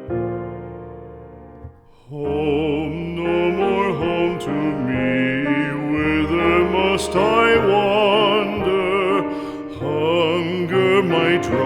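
Background music: a piano chord fades out, and about two seconds in a singer starts with heavy vibrato, accompanied by piano.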